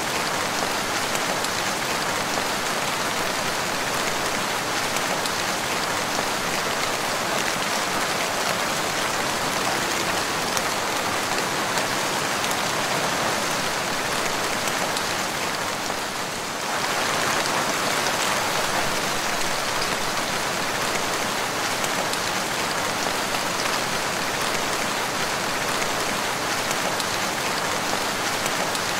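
Steady rain falling, a dense, even hiss of drops that dips briefly in level a little past halfway through.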